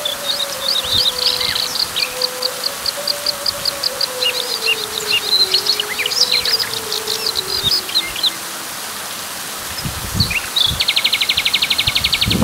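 Birds chirping over a steady hiss of rain: quick runs of repeated high chirps, then a fast, even rattling trill near the end.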